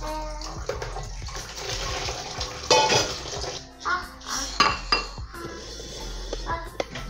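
Aluminium cooking pot with a colander of spinach clattering as it is handled and set down on a kitchen counter, loudest about three seconds in, with a few more knocks a second and a half later. Water runs or splashes in the background.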